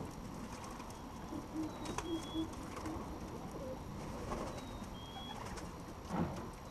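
Homing pigeons cooing: a few short, low coos about a second and a half in.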